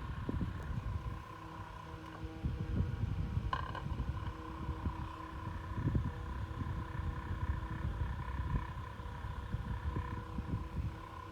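Vent-Axia Micro desk fan running: a steady motor whine over an uneven low rush of air, with a short click about three and a half seconds in.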